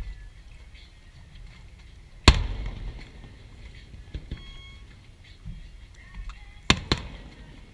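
Aerial fireworks shells bursting: a loud boom a little over two seconds in that rumbles away for about a second, then two sharp bangs in quick succession near the end.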